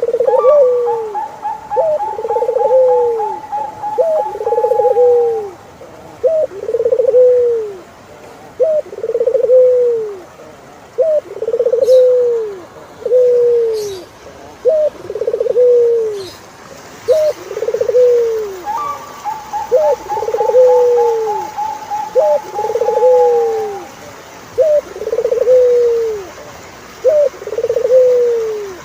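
Turtledove cooing over and over, about one coo every two seconds, each a short note followed by a longer arching one. Twice, a higher, long, even trill from another bird runs for about five seconds over the cooing.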